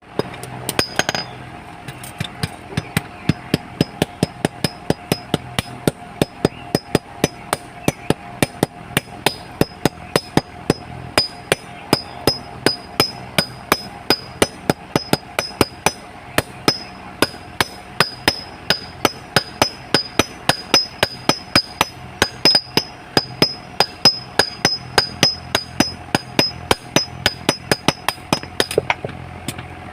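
Blacksmith's hammer striking metal on an anvil in a steady rhythm of about three blows a second, each blow ringing.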